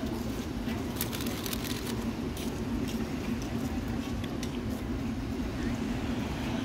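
Steady low outdoor background rumble, with scattered light clicks over it.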